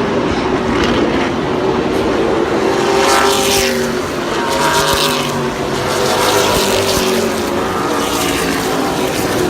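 Race car engines running loud as cars circle the track, several at once, their pitch rising and falling as they pass.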